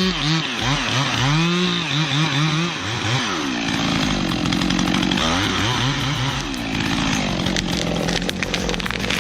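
Chainsaw engine revved up and down over and over for the first few seconds, then held at a steady high speed with a few brief dips in pitch.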